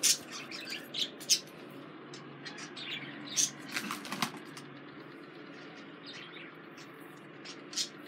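Pet budgerigars chirping in short scattered calls, with a few sharp clicks, over a low steady room hum.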